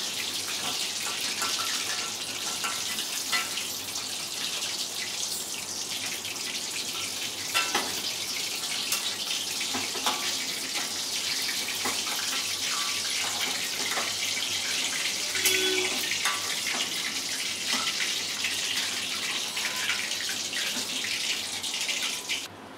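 Battered chicken pieces sizzling in hot oil in a wok during their second fry, a steady hiss with a few sharp clicks as the pieces are lifted out. The sizzle cuts off suddenly near the end.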